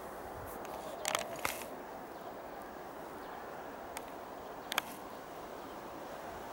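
Steady outdoor background noise with a few short, sharp clicks: two about a second in and a close pair near the end.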